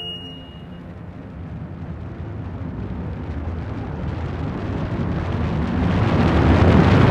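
A rumbling, rushing sound effect of an approaching fireball, growing steadily louder over several seconds as it builds toward an impact.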